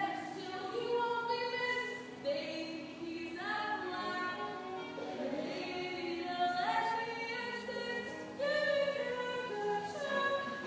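Voices singing long held notes together in harmony, a show-tune passage whose sung lines step from note to note about once a second.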